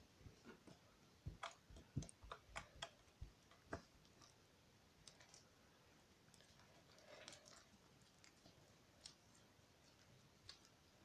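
Sticky homemade pink slime being picked up off a table and kneaded by hand, making small irregular clicks and sticky pops. The clicks come thick in the first four seconds, then thin out to a few scattered ones.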